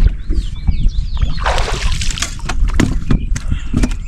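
A hooked bass splashing and thrashing at the water's surface as it is fought to the boat, with irregular sloshing and sharp knocks.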